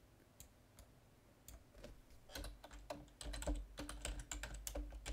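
Typing on a computer keyboard. There are a few scattered clicks at first, then a quick run of keystrokes from a little before halfway on.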